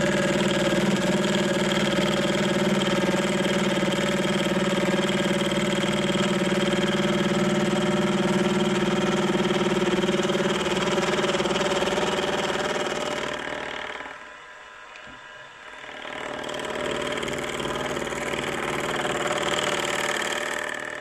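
Milling machine running with a 10 DP gear cutter while cutting the teeth of a 13-tooth gear: a loud, steady whine with several tones. About thirteen seconds in it fades to near quiet, then comes back softer before dropping off near the end.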